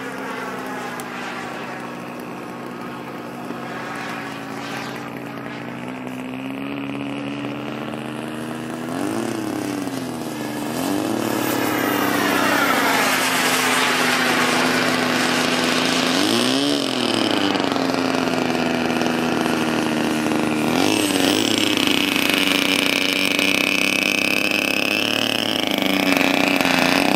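Radio-controlled model jet flying overhead, its engine a steady droning whine. The pitch swells up and back down briefly several times, the sound grows louder from about ten seconds in, and a higher whine joins near the end.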